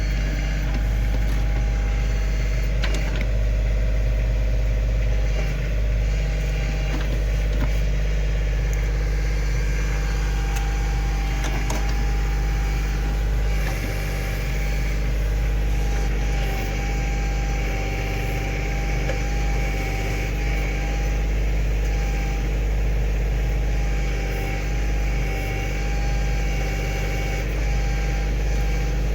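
Kioti CK2610 compact tractor's three-cylinder diesel engine running steadily.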